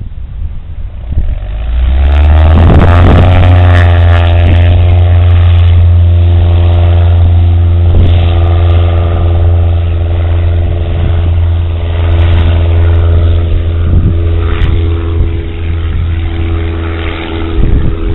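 Light propeller airplane's piston engine coming up to full power, rising in pitch about two seconds in and then running loud and steady.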